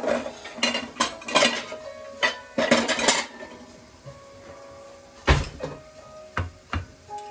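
Ceramic dishes clinking and clattering in a cluster of sharp clicks as a plate is pulled from a dish rack, then a louder knock about five seconds in and two lighter clicks, over background music.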